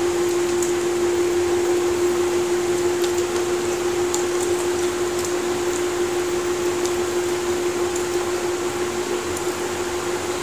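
A fan running steadily: an even rushing noise with a constant mid-pitched hum, and a few faint light clicks over it.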